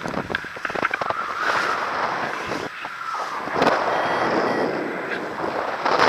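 Wind rushing over the camera's microphone during a paraglider flight, swelling and fading in gusts, with a few light clicks in the first second.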